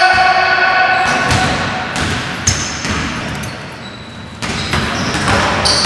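Basketballs bouncing and thudding on a hardwood gym floor, echoing in a large hall. A drawn-out high-pitched squeal fades away within the first second.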